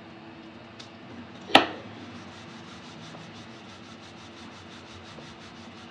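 A wooden rolling pin knocks once, sharply, on a marble worktop about a second and a half in, then rubs faintly back and forth as it rolls out a potato-stuffed paratha dough, over a steady low hum.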